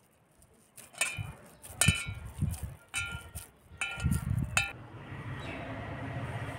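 Steel bowl clinking and briefly ringing about six times as a hand scoops and presses soya kebab mixture in it, with soft low thuds of the mixture being handled. From about five seconds in, only a steady faint outdoor hiss remains.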